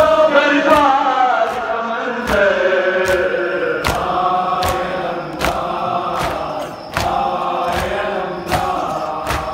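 A group of men chanting a Shia noha (mourning lament) in unison, with sharp chest-beating (matam) slaps keeping time at about one every 0.8 seconds.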